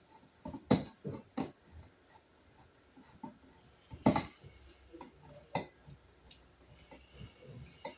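Scattered sharp clicks and taps, the loudest just under a second in and about four seconds in, from a screwdriver working the mounting screws of a GFCI receptacle into its electrical wall box.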